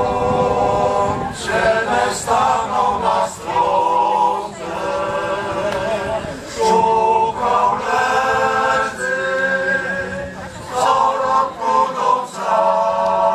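Men's choir singing a Kashubian song a cappella in several parts, in held chords broken into short phrases.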